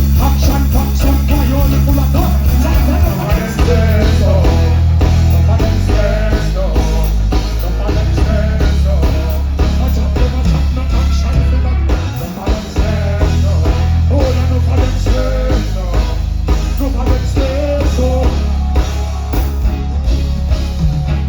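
Live dancehall reggae band music, loud, with a heavy bass line, drums and a wavering vocal or melody line over it; the bass drops out briefly twice.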